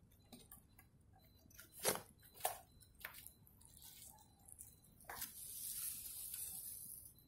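Wooden furniture panels being handled: a few light knocks and clatters, the loudest about two seconds in. A steady high hiss follows for about two seconds near the end.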